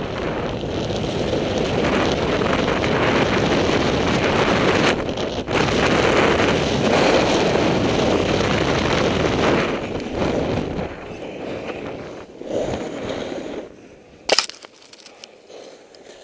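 Wind rushing over the action camera's microphone with skis hissing over packed snow at speed, easing and growing quieter about eleven seconds in. A single sharp click near the end.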